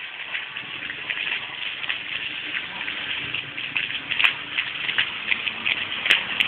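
Vegetation fire burning, a steady rushing hiss full of small crackles and pops, with a few sharper snaps near the end.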